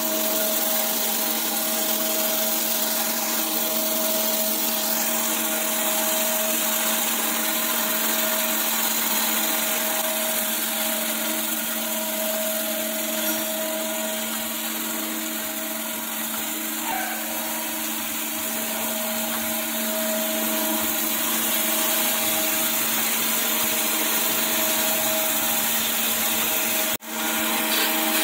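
Surface grinder running, its wheel skimming the worn face of an aluminium hydraulic gear pump housing under a flood of coolant: a steady grinding hiss over a motor hum with several steady tones. The sound drops out for an instant near the end.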